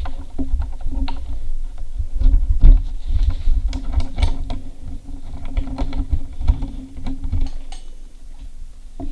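Irregular small clicks, taps and knocks of hands and tools handling parts of an ice auger's engine, over a low rumble. They are busiest in the middle and thin out near the end.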